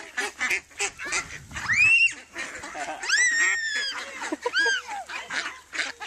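A flock of ducks calling, many quick short calls one after another, with a few longer high, arching cries about two, three and four and a half seconds in.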